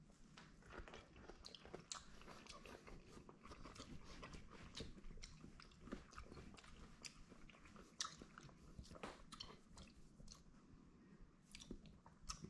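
Faint, close-up chewing of a battered buffalo cauliflower 'wing', with many irregular small crunches and crackles of the coating.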